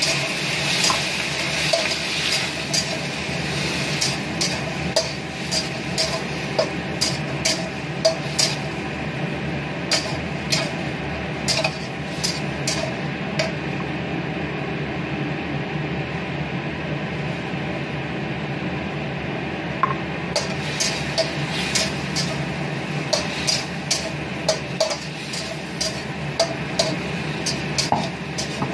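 Shrimp and onions sizzling in a stainless steel wok while a metal slotted spatula stirs them, clinking and scraping against the pan in irregular knocks. The knocks thin out for a few seconds in the middle.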